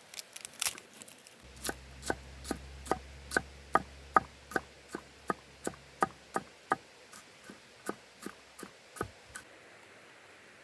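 A knife chopping on a wooden cutting board. A few quick, uneven taps come first, then steady strokes at about two and a half a second, which stop shortly before the end.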